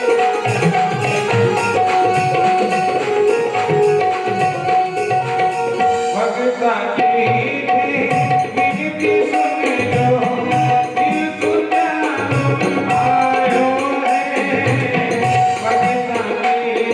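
Bhajan music without words: tabla playing a dense rhythm under a melody line, over a steady held drone note.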